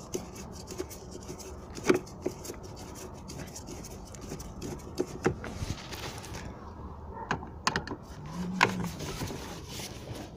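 Screwdriver undoing self-tapping screws in a plastic dashboard trim panel, and the panel being worked loose: a run of small clicks and scrapes with a few sharper plastic knocks.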